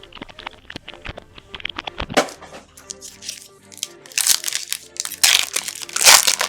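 Plastic and foil packaging crinkling and tearing in several bursts as trading-card packs are opened, loudest in the second half, over quiet background music.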